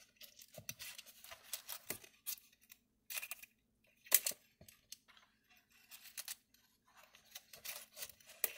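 Faint, irregular clicks and scratches of thin picture-hanging wire being handled and threaded through a screw-in hanger on the back of a wooden panel.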